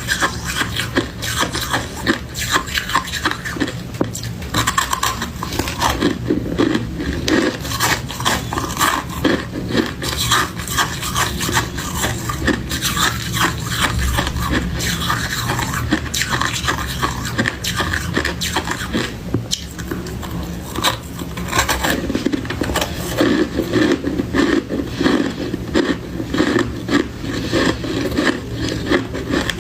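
Freezer frost being crunched and scraped in a dense, continuous run of small crisp crackles.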